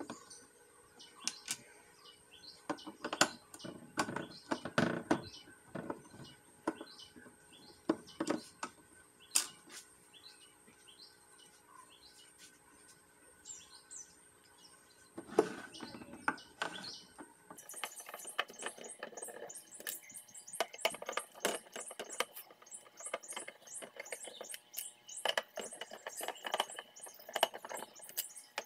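Screwdriver working the screws of an old electronic scale's plastic housing: irregular clicks, taps and scrapes of metal on plastic, with birds chirping faintly in the background.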